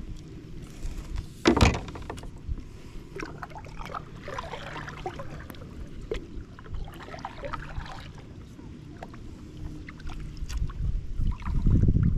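Kayak in use on the water: one loud knock on the hull about a second and a half in, then scattered small clicks and splashes of water. Wind on the microphone grows loud near the end.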